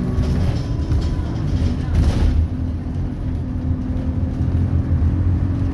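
Cabin sound of an Alexander Dennis Enviro200 Dart single-decker bus on the move: a steady diesel engine drone and road rumble, with a brief louder rush of noise about two seconds in.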